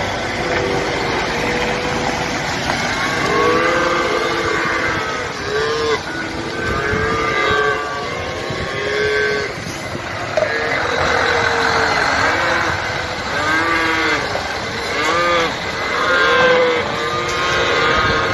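Many young calves, two to three weeks old, bawling over and over inside livestock trucks, short wavering calls one after another, over the steady running of the trucks.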